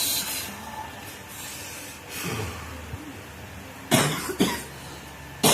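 A man coughing hard several times, a chronic cough, with the two loudest coughs close together about four seconds in.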